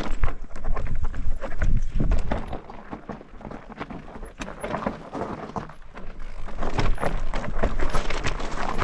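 Irregular knocks and clatter of an e-mountain bike and rider moving over a rocky fell path, over a steady low rumble. The clatter is loud at first, eases off from about two and a half seconds in, and builds again toward the end.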